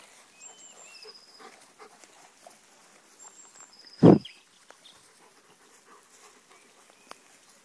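A Leonberger snorts once, short and loud, about four seconds in, with its nose down in the grass. Faint birdsong of short high whistled notes runs around it.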